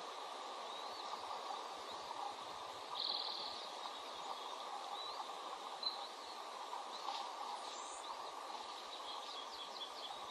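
Faint, short, high-pitched bird chirps scattered over a steady outdoor hiss, with a quick buzzy trill about three seconds in and a cluster of chirps near the end.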